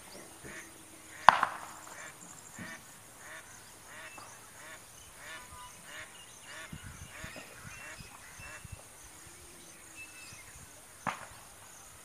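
Water birds on a pond calling in a steady run of short, repeated calls, about three every two seconds. A sharp knock comes about a second in and another near the end.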